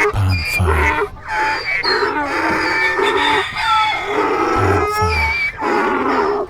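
Several farm animals calling at once, overlapping pitched calls with clucking fowl among them, and two pairs of short low thuds.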